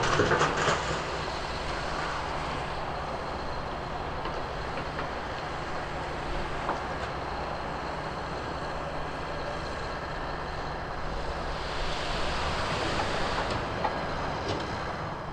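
Steady drone of quarry machinery with a faint low hum running under it. A few louder knocks and rustles come in the first second.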